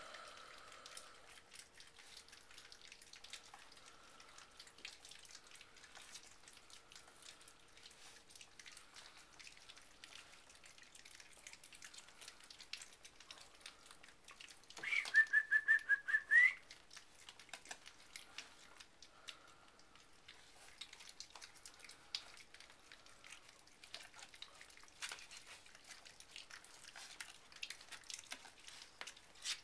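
Four-week-old puppies eating soft food from a shared tray: faint lapping and chewing clicks. About halfway through comes a loud, high-pitched trilling squeal lasting about a second and a half, rising in pitch at its end.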